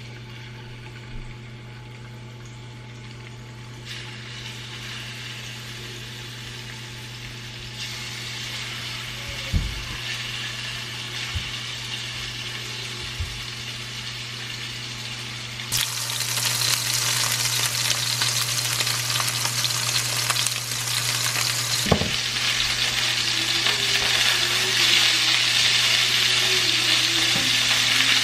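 Boneless chicken thighs sizzling as they fry in hot olive oil in a skillet; the sizzle grows louder in steps as more pieces go into the pan. A few short knocks come through.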